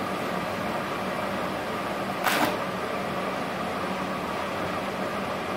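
Steady hiss and hum of a Multipro TIG 400D G-TY DC inverter TIG welder and its arc welding steel, with one short sharp crackle about two seconds in.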